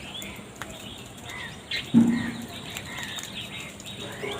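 Birds calling in short, high chirps, with one brief, louder low sound about two seconds in.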